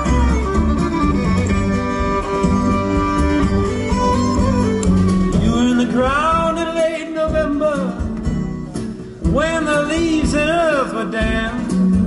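Live folk-rock band playing an instrumental passage: violin melody over acoustic guitar, upright bass and drums. In the second half the lead line turns to sliding, wavering notes.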